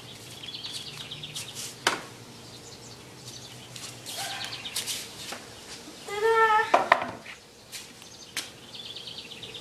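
Small birds chirping in short rapid trills, with a few sharp knocks and one short pitched call about six seconds in.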